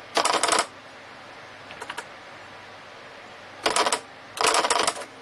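Brother BP-30 typewriter's pen-plotter print mechanism drawing figures in calculator mode: three short bursts of rapid clicking and rattling as the pen barrel and carriage move, with a few light ticks between them.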